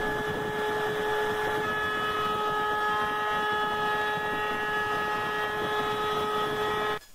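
Table-mounted router running at speed with an eighth-inch roundover bit, a steady whine over the noise of the bit cutting into a beech drum shell as the outer bearing edge is rounded over. The sound cuts off abruptly near the end.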